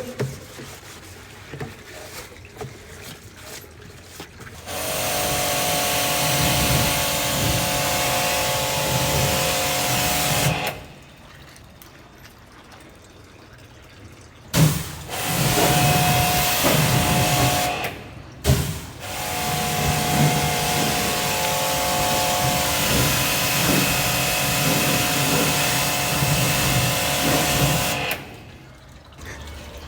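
A motor-driven tool running in three long spells with short pauses between, a steady hum under a loud hiss, switched off and on again each time.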